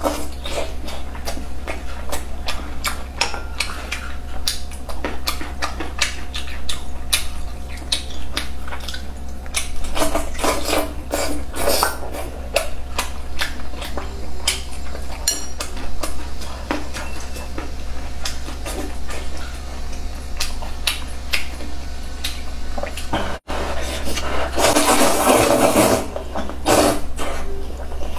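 Close-miked eating of braised pork belly and glass noodles: a steady run of wet chewing and lip-smacking clicks, with chopsticks now and then tapping the bowl. About two-thirds of the way through, a longer noisy stretch of slurping noodles. A faint low hum sits under it all.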